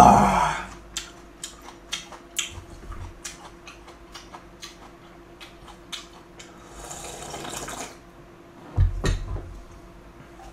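Mukbang eating sounds over a bowl of jjamppong (spicy seafood noodle soup): a loud open-mouthed exhale fading at the very start, scattered clicks of chopsticks and bowl, slurping of broth from the tipped bowl about seven seconds in, then the bowl set down on the table with a thump about nine seconds in.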